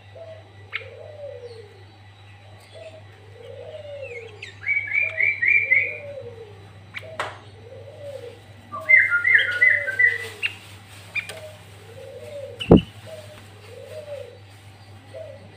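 Sooty-headed bulbul (kutilang) singing two loud bursts of quick chirping phrases, over a dove cooing steadily about once a second. A single sharp knock near the end is the loudest moment, and a low steady hum runs underneath.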